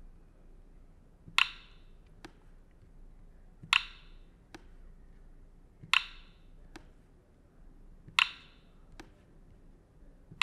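Clicks of code blocks snapping into place in the OzoBlockly editor as light-effect blocks are dropped between movement blocks: four sharp clicks about two and a quarter seconds apart, each followed under a second later by a fainter tick.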